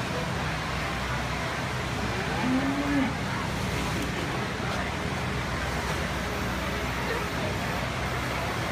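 A beef steer mooing once, a short call that rises and falls, about two and a half seconds in, over a steady low background hum.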